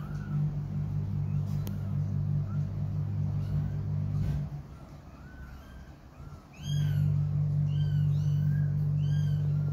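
Twelve-day-old kittens mewing: short, high-pitched arched mews, sparse at first and coming a few a second in the second half. Under them runs a steady low hum that drops out for about two seconds in the middle and then returns.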